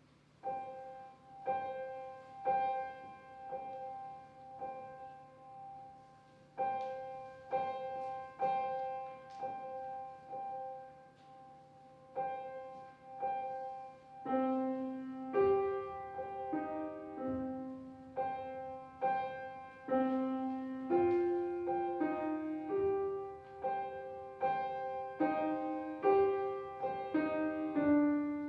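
Solo piano playing a slow, steady pulse of repeated high notes. About halfway through, a lower melody joins beneath them, moving note by note while the high repeated notes go on.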